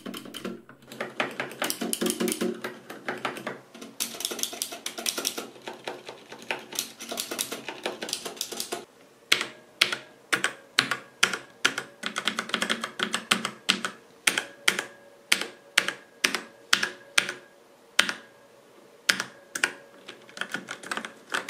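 Mechanical keyboards being typed on: rapid continuous typing for the first nine seconds or so, then separate keystrokes about two a second. Faint ringing follows many of the later strokes. This is the case ringing that the owner finds severe on the ABKO Hacker K640 with Outemu brown switches.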